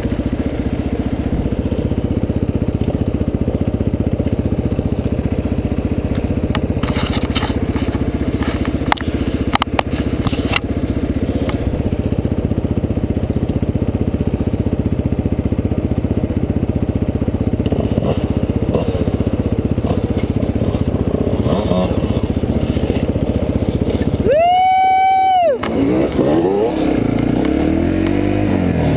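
Dirt bike engine running steadily under way, with gravel crunching under the tyres. A cluster of sharp knocks comes about seven to ten seconds in, and a short high tone swells and falls about 25 seconds in.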